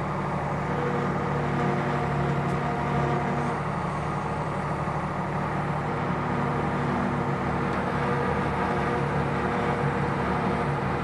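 Ford 555 backhoe's diesel engine running steadily at an even pitch.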